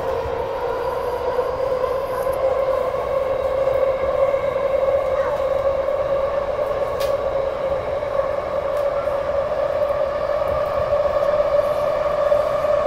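Inside a Taipei Metro C371 train pulling away from a station: the traction motor whine rises slowly in pitch as the train gathers speed, over a steady rumble of wheels on rail.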